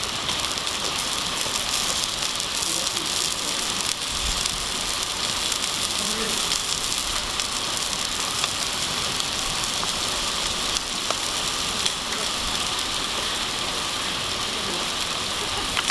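Campfire burning: a steady hiss with scattered small crackles and pops.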